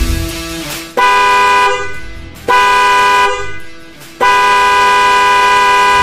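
Hella Fury car horn sounding three times: two short blasts of under a second each, then a long blast of nearly two seconds.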